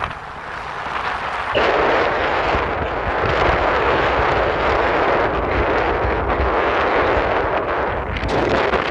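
Wind buffeting a phone's microphone held out of the window of a moving car, over a low road rumble. The buffeting jumps sharply louder about a second and a half in and stays heavy.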